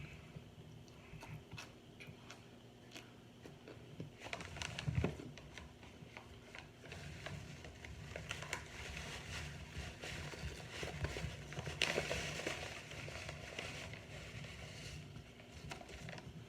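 Crisp crunching and chewing of microwave-baked cornstarch chunks close to the microphone. Scattered crackly bites come first, then a loud burst about four seconds in, then dense crunching that peaks near twelve seconds.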